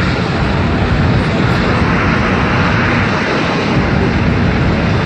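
Four turbofan jet engines of a C-17 Globemaster III running at high power, a loud, steady jet rush with no rise or fall.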